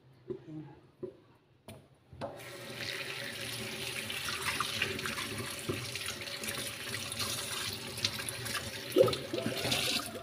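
Kitchen tap turned on about two seconds in, water running into a stainless steel sink and over a mud crab shell rinsed by hand. A sharp knock about nine seconds in.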